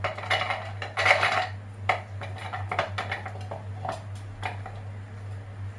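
Chopped chillies, shallots and garlic tipped and dropped by hand from a plate into a plastic food-chopper bowl: a run of clatter in the first second or so, then scattered light knocks as the last pieces fall. A low steady hum runs underneath.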